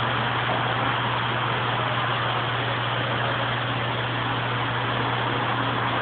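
Reef aquarium equipment running: a steady low pump hum under an even rushing hiss of moving water.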